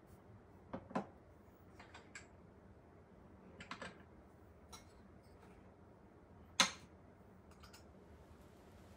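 Faint, scattered clicks and knocks of small glass cups and jars being handled and set down on a kitchen countertop, the loudest knock about two-thirds of the way through.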